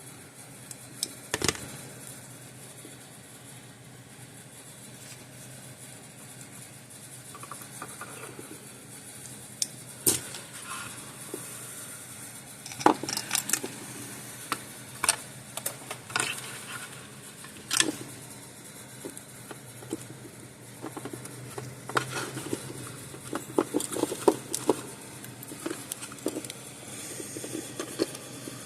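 Scattered sharp clicks and small metal rattles from hand tools and terminals as wire ends are stripped and female spade connectors are crimped on, with a busier run of clicks near the end.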